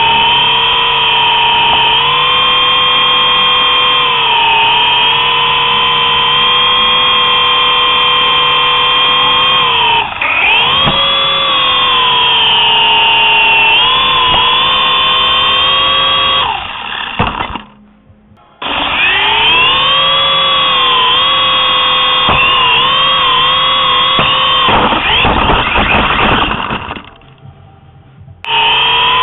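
Toy RC helicopter's small electric rotor motor whining loudly, its pitch rising and falling as the throttle changes. It cuts out twice, briefly at about two-thirds through and again near the end, and goes rough and rattly just before the second cutout.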